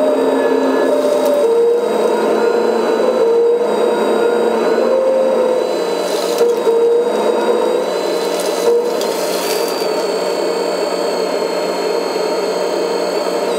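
Hydraulic pump of a Kabolite K350 RC excavator whining steadily, its pitch stepping up and down as the boom and bucket are worked. About six seconds in, and again near nine seconds, gravel rattles as it is tipped from the bucket into a dump truck's bed.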